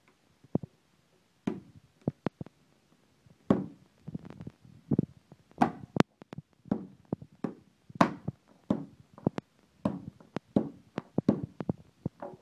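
An old cell phone being struck again and again with a hard object: a long run of sharp knocks and taps at uneven spacing, some harder than others.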